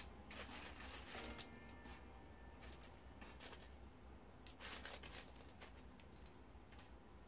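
Loose plastic Lego bricks clicking and clattering as hands rummage through a pile of pieces. There are scattered faint clicks, with a sharper clack at the start and another about four and a half seconds in.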